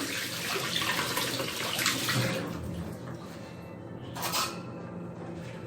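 Kitchen tap running while a piece of fresh ginger is rinsed under it, the water splashing into the sink. The flow is strongest in the first two seconds and eases after, with a short louder rush about four seconds in.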